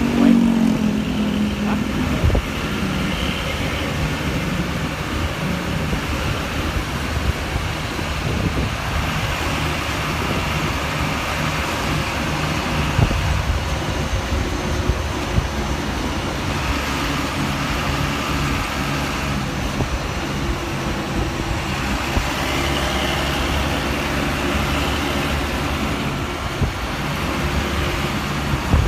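Road traffic: motor vehicle engines running with steady roadway noise.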